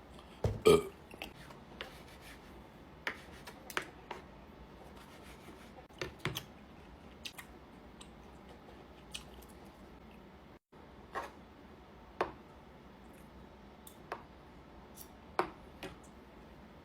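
Close-miked eating of steak: irregular wet mouth clicks and chewing sounds about once or twice a second, the loudest just after the start.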